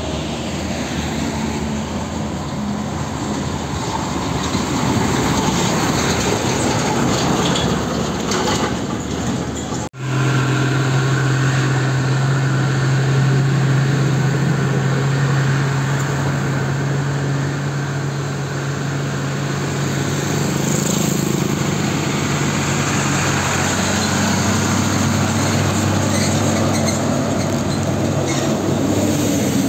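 Heavy diesel trucks passing one after another on an uphill road, engines running under load with tyre and road noise. About ten seconds in the sound breaks off for a moment, then a steady, low engine drone from a passing truck dominates, fading and swelling again near the end.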